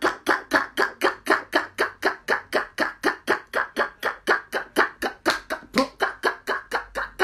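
A woman praying in tongues, chanting one short syllable over and over very fast, about five a second, in a steady, even rhythm.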